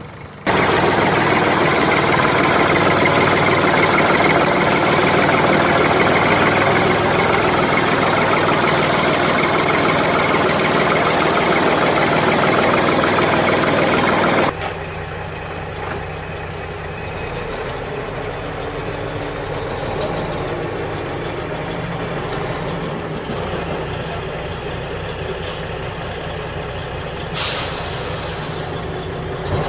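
A loud steady hiss that cuts off suddenly about fourteen seconds in, followed by a small motor humming steadily, with a short sharp hiss near the end.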